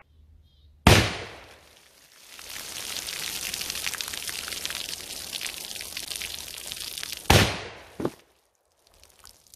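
.44 black-powder percussion revolver (Remington 1858 replica) fired once about a second in, bursting a water-filled plastic jug. Water then pours and splashes off the table onto the ground as a steady hiss for several seconds. A second sharp bang comes near the end, followed by a smaller one.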